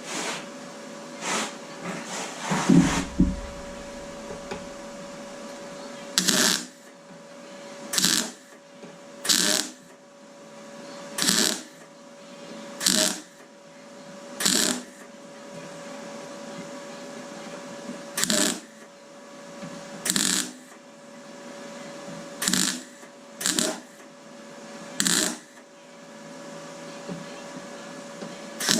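MIG welder putting short tack welds into a car door repair panel: about fourteen short bursts of welding, each under half a second, a second or two apart, over a steady hum. A low knock sounds about three seconds in.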